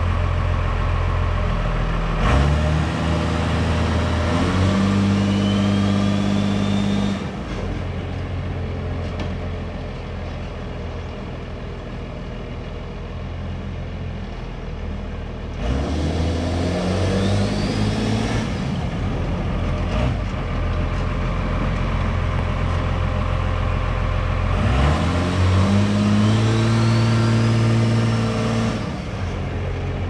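Monster truck engine running with a steady low drone, revved up three times as the truck drives off across the yard, each rev rising in pitch and lasting a few seconds.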